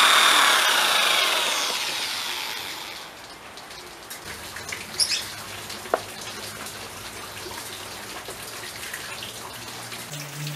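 Electric drill's motor spinning down after drilling into wood: it falls in pitch and fades over about three seconds. A few light knocks and clicks of wooden pieces being handled follow about five and six seconds in.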